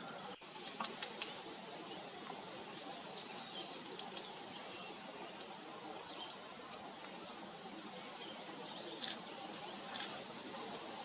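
Scattered short bird chirps and a few sharp clicks over a steady outdoor hiss.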